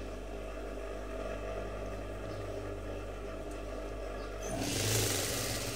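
Juki industrial lockstitch sewing machine with its motor humming steadily, then running a short burst of stitching lasting about a second, about four and a half seconds in.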